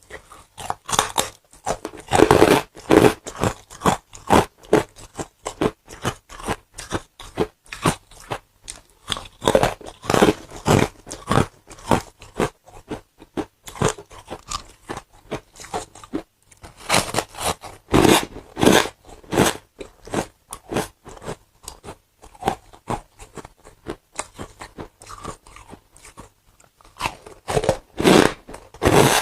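Ice being bitten and chewed close to the microphone: rapid, irregular crunching and crackling in clustered bursts, with quieter chewing in between.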